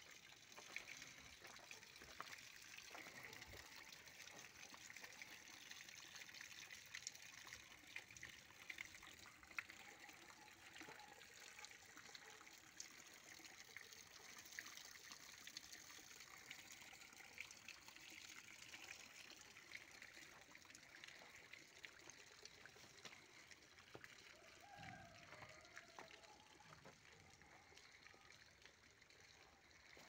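Faint, steady trickle of water from a hose running over a rock in a stone-wall water feature and dribbling down onto the stones below.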